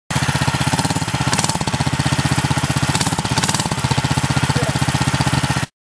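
Engine exhaust running with a rapid, even pulsing of about a dozen beats a second, with a couple of brief brighter surges, then cutting off suddenly near the end.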